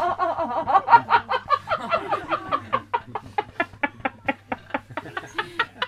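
A person laughing in a long, rapid run of short pulses, about five a second, that stops near the end.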